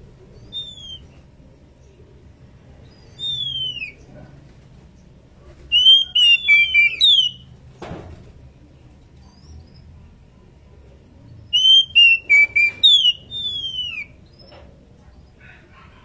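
Female oriental magpie-robin (kacer) calling with clear whistled notes that slide down in pitch, a few single notes and then two quick runs of several notes about six and twelve seconds in. These are the calls of a hen in breeding condition calling to her mate.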